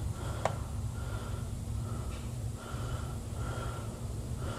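Steady low hum of workshop background noise, with one faint click about half a second in.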